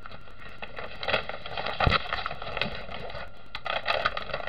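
Protective release paper on a sticky diamond painting canvas crinkling and rustling as it is handled and peeled back, in two bouts, with a soft thump about halfway through.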